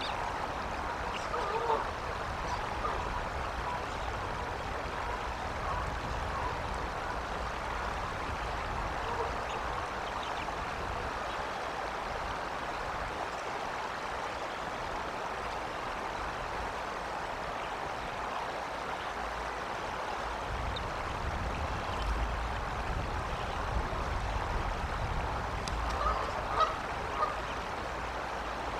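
Geese honking here and there in the distance over a steady outdoor hiss, with a few louder honks near the end. A low rumble swells in the last third.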